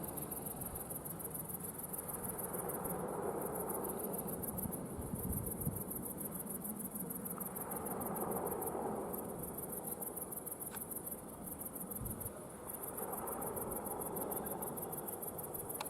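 Crickets chirping steadily in a fast pulsing trill, with a few short breaks. Underneath, a low distant rumble swells and fades several times.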